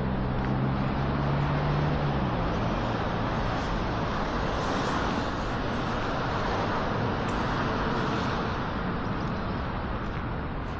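Street traffic. A vehicle's engine hum fades out about two seconds in, then the rushing noise of passing traffic swells in the middle and eases off again.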